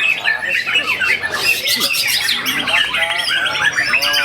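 White-rumped shama (murai batu) singing a fast, unbroken song of varied chirps and trills, with rival caged songbirds singing alongside.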